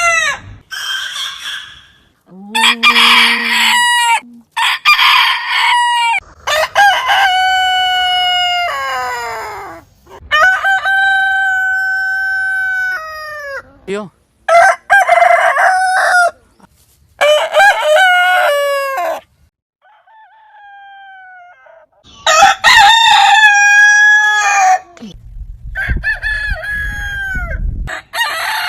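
Roosters crowing one after another, about ten cock-a-doodle-doo crows from different birds. Most are a second or two long and fall in pitch at the end; one in the middle is held for about three seconds. A low rumble runs under one crow near the end.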